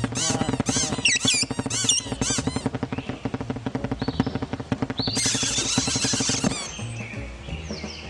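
Cartoon birds' squeaky, chattering calls over music, with a dense run of quick ticks through the middle and a brief loud hiss-like burst about five seconds in.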